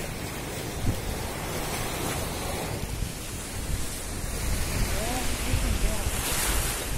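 Sea surf breaking and washing up on a sandy, rocky shore, with wind rumbling on the microphone. The wash swells about two seconds in and again near the end.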